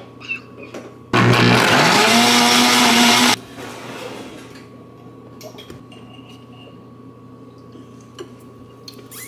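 Countertop blender blending a smoothie for about two seconds: its motor whines up to speed about a second in, runs steadily and loudly, then cuts off suddenly.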